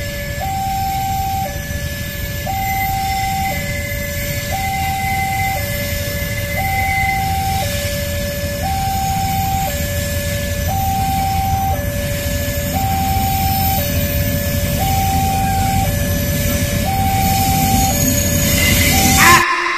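A two-tone hi-lo warning siren alternating between two pitches about once a second, over a steady low rumble. It cuts off abruptly near the end.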